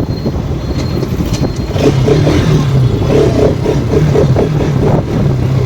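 Motorcycle engine running under way at a steady moderate speed, its pitch shifting slightly up and down, with traffic and road noise around it.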